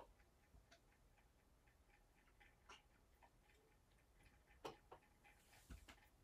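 Near silence in a quiet room, with faint scattered ticks and clicks, a sharper click just under five seconds in and a soft knock near the end.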